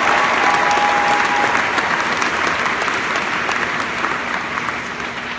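Audience applauding, the clapping gradually dying down toward the end.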